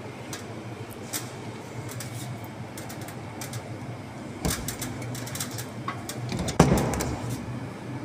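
Light clicks and metal clatter of screws and the door closer's arm bracket being handled and positioned, with one sharper knock about six and a half seconds in, over a low steady hum.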